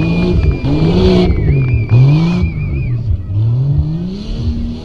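Jeep Cherokee engine revving hard over and over, its pitch climbing and dropping about once a second as it is driven on a rough off-road course. A thin high whistle-like tone is held through the first half and warbles before stopping about three seconds in.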